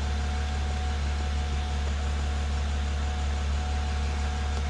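BMW N54 twin-turbo straight-six idling steadily at full operating temperature, heard from inside the car as a deep even hum with a faint steady whine over it.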